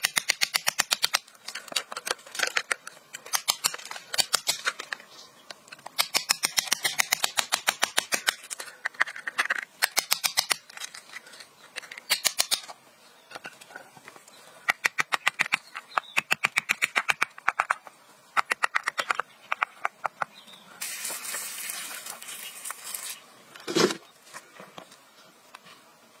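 A tool scraping and digging through gravelly soil, in runs of rapid scratchy clicks separated by short pauses. Near the end there is a brief rubbing hiss, then a single knock.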